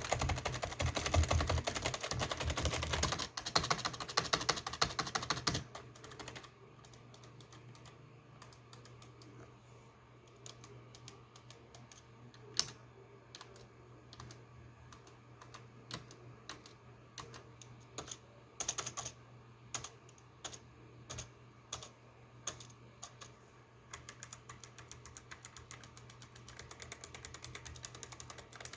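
Typing on a Razer Ornata V2 mecha-membrane keyboard: a fast, loud flurry of keystrokes for the first five or six seconds, then slower scattered key presses, and a quicker steady run of keystrokes again near the end.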